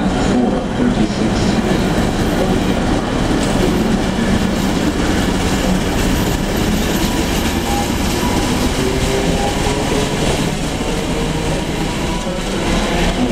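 ČD class 749 diesel locomotive's engine running steadily with a constant low hum.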